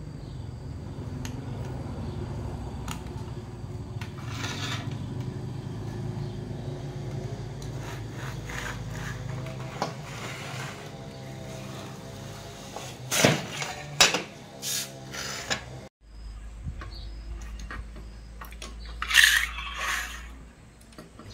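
Hands working an electric fishing inverter's circuit board in its aluminium case: rubbing and scraping of the board and parts. A few sharp clicks and knocks come about two-thirds of the way through, and a louder scrape near the end, all over a steady low hum.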